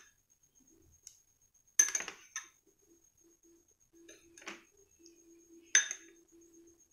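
A metal spoon clinking against glass and ceramic bowls, four sharp separate clinks about a second or two apart, over a faint steady electrical hum.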